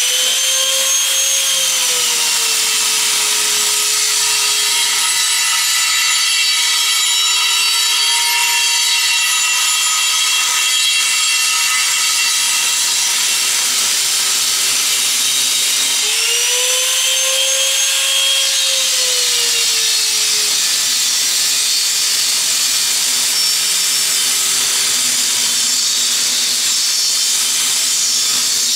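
Small angle grinder running at full speed and biting into the steel wall of a gas cylinder, a loud steady whine with a shower of sparks. Its pitch drops as the disc is pressed into the steel, rises about halfway through when the disc comes free for a moment, then drops again as it bites back in.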